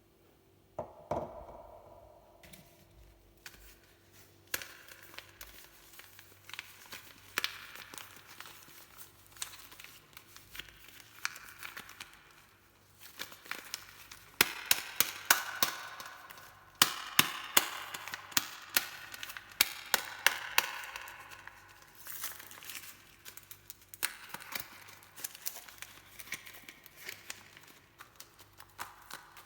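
Soap packaging being torn open and crumpled by hand: crinkling, tearing and sharp crackles. Quiet at first apart from one bump about a second in, busier from about four seconds, loudest in the middle stretch.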